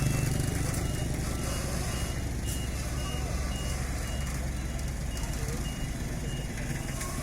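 A heavy vehicle's reversing alarm beeping steadily, about two short high beeps a second, over the low steady running of a diesel engine.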